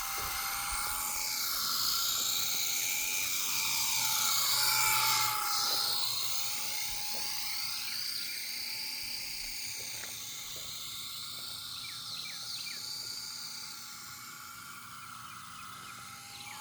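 RC helicopter in flight, its motor and rotor giving a steady high whine. It is loudest about five seconds in, then gradually fades a little, with the tone sweeping as the helicopter moves.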